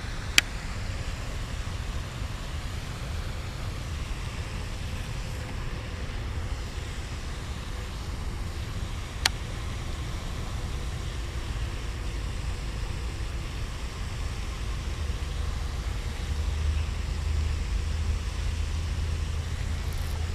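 Steady low outdoor rumble, like distant traffic or wind on the microphone, growing a little louder near the end, with two sharp clicks: one right at the start and one about nine seconds in.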